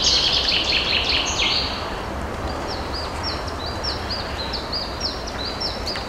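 Small birds singing: a dense high chirping trill for the first second and a half, then a run of short high repeated notes, about three a second, over a steady low background noise.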